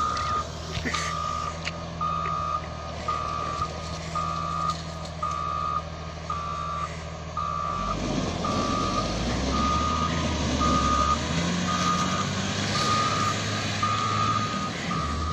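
A vehicle's reversing alarm beeping steadily, about one and a half beeps a second, over a running engine whose note changes about halfway through.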